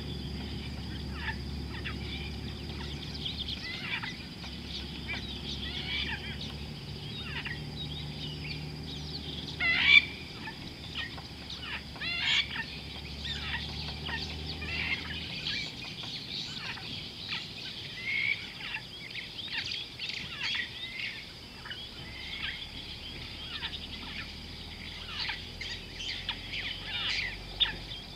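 Many birds calling at once: a busy chorus of short chirps and sharp calls, the loudest about ten seconds in.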